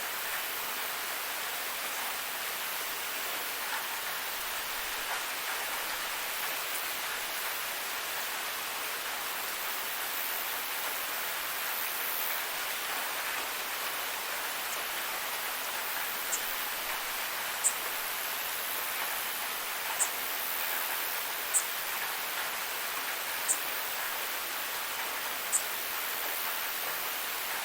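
Waterfall, water rushing steadily. In the second half, short high-pitched chirps come about every two seconds.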